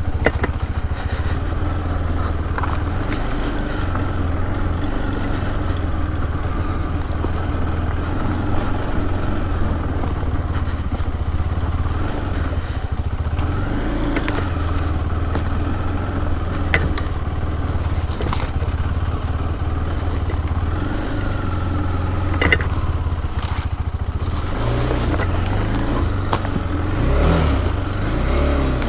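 KTM 390 Adventure's single-cylinder engine running at low, steady revs off-road, with a few sharp clicks and scrapes over it.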